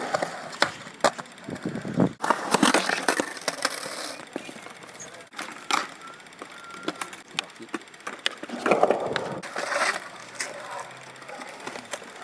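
Skateboard wheels rolling over concrete in passes that come and go, with several sharp clacks of the board striking the concrete.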